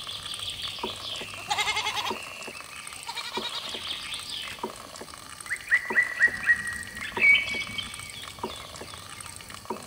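Sheep or goat bleating, several calls: a quavering one early on, then a run of short calls about halfway through that are the loudest part, with a few faint knocks between them.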